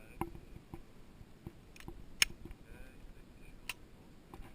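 Glock 17 pistol being handled: a few sharp metallic clicks and light knocks, the loudest a little over two seconds in, with no shots fired.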